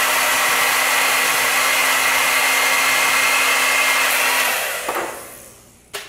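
Handheld hair dryer running on full blow, a steady rush of air with a thin whine, then switched off about four and a half seconds in, its noise dying away over a second or so with a click.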